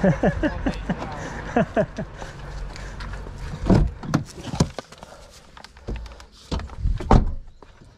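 Volkswagen car door opened and gear handled at the car: a few sharp knocks and clunks a little before halfway, then a quick run of clunks and clicks near the end.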